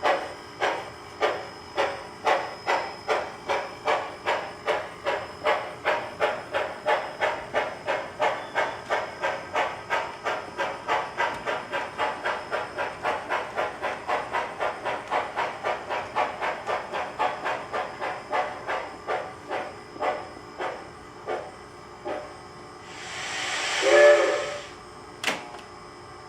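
DCC sound decoder in a model steam locomotive, played through its small onboard speaker: rhythmic steam chuffs that quicken to about three a second, then slow and stop. Near the end comes one whistle blast, then a sharp click.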